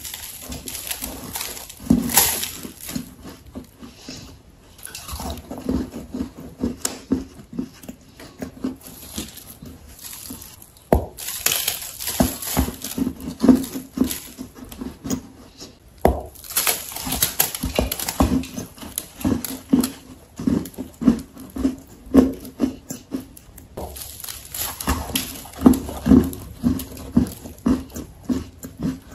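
A person biting and chewing dry, sandy halva clay. The crunching comes in clusters of quick crackles, with short pauses between mouthfuls.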